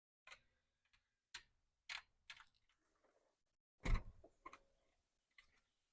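Scattered light plastic clicks and taps, with a louder knock about four seconds in, from the master power window switch being worked out of its tight opening in the door panel trim.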